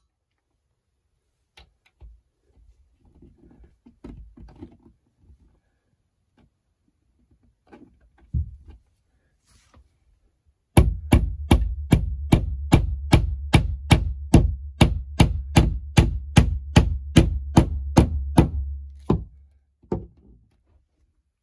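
Hammer tapping the expanding pin of a plastic wall anchor into a hole in drywall: faint handling sounds at first, then about two sharp strikes a second for some eight seconds.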